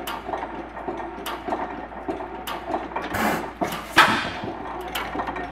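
International Harvester 10 hp Famous stationary engine running, with a sharp click about every second and a quarter. One louder bang comes about four seconds in and trails off.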